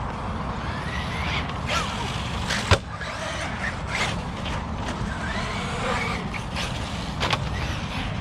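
1/8-scale ARRMA Notorious RC basher driven hard, its motor whining up and down in pitch over the tyre noise on concrete. Several sharp knocks from jumps and landings come through, the loudest nearly three seconds in.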